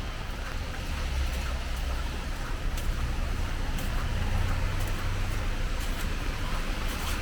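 Rainy city street ambience: a low rumble of traffic over a steady hiss of wet road and rain, with scattered light clicks.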